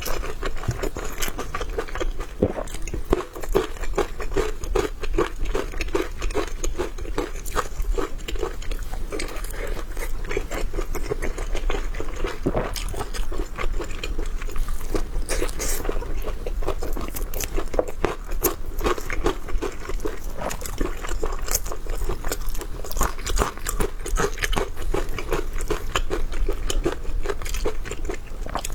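A person chewing and crunching food, a steady run of small crisp crunches and mouth sounds with no pauses.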